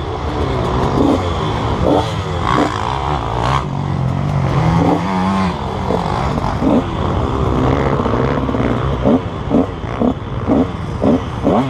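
KTM 150 SX two-stroke motocross engine under hard riding, its pitch rising in short revs again and again and falling back between them, with a steadier pull held through the middle.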